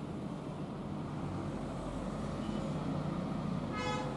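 Steady low background hum, with a short pitched toot like a vehicle horn near the end.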